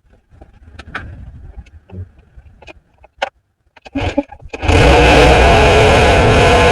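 Scattered light clicks and knocks, then about four and a half seconds in an engine abruptly starts running loudly and steadily, with a hum and a hiss over it.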